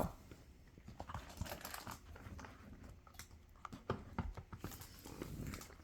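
Faint, scattered light clicks and taps from a puppy moving about.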